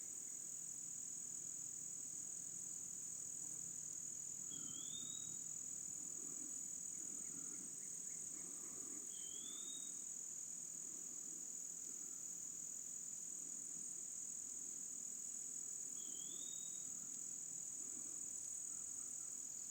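A steady high-pitched insect chorus, cricket-like, shrilling without a break. A bird gives a short rising whistled call three times, several seconds apart.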